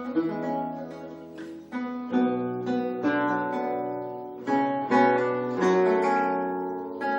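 Background music on acoustic guitar: plucked and strummed chords, a new chord struck about every second and left to ring and fade.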